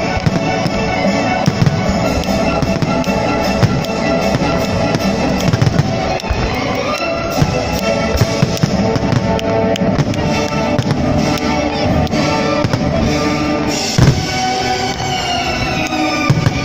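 Aerial fireworks shells bursting in quick succession, many sharp bangs one after another, over loud continuous music.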